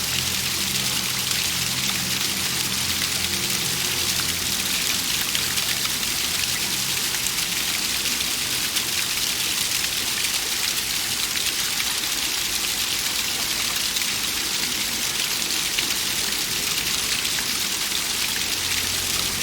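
Waterfall: water falling and splashing steadily, a dense even hiss with no let-up.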